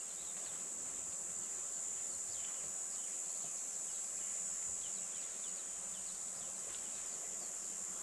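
Insects keeping up a steady, high-pitched trill, with faint scattered bird chirps over it.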